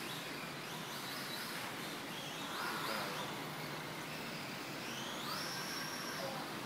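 Kyosho DRX electric RC drift car's motor whining faintly, its pitch rising and falling as the throttle is worked, with a clear rise about five seconds in that then holds. Over a steady hiss.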